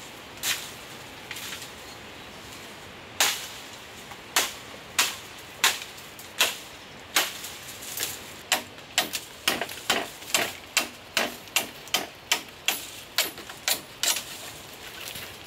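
A knife blade chopping at a green bamboo pole, trimming off its side branches with sharp knocks. A few spaced strikes come first, then a quicker run of about two a second from about halfway.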